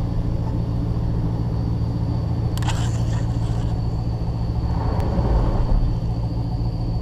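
Off-road 4x4's engine running at a steady low idle as it crawls toward a rocky climb, heard close through a hood-mounted camera. A brief crackle comes about two and a half seconds in, and a low thump around five seconds in is the loudest moment.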